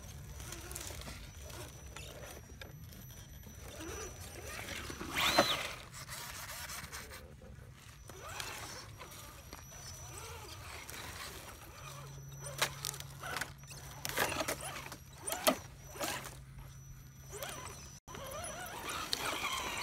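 Axial SCX10 Jeep Wrangler RC crawler's electric motor and drivetrain whining as it creeps over roots and leaf litter, with one whine rising and falling about five seconds in. In the second half the tires crackle and snap over twigs and dry leaves while the motor hums steadily.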